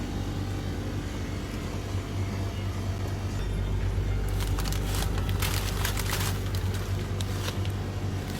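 A steady low mechanical hum throughout, with a cluster of rustling and clicking handling noises in the second half.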